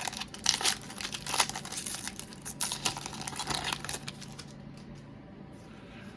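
Foil wrapper of a Pokémon card booster pack being torn open and crinkled, a busy crackling for about four seconds that then dies down.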